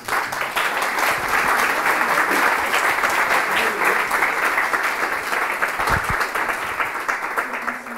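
Audience applauding: dense, steady clapping that cuts off suddenly at the end.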